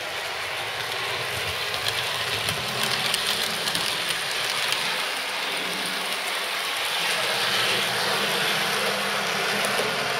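OO gauge model two-car diesel multiple unit running along the layout track: a steady whir of the model's motor and wheels, with faint clicks as it runs over the rail.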